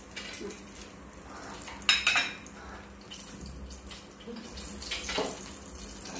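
Green vegetables sizzling in a wok as they are stir-fried, with chopsticks clicking against the pan about two seconds in and again near five seconds.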